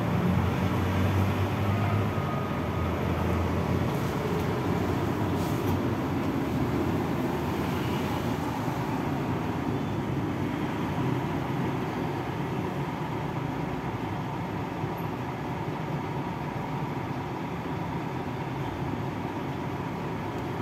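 Steady rumble of road and wind noise from travelling at speed, a little heavier in the first few seconds and easing slightly toward the end.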